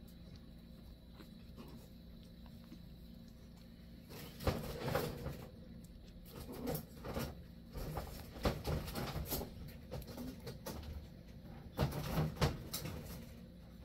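A long-coat Chihuahua puppy playing on a fleece dog bed, mouthing a hand and tugging a plush toy. From about four seconds in there are irregular rustles and soft knocks.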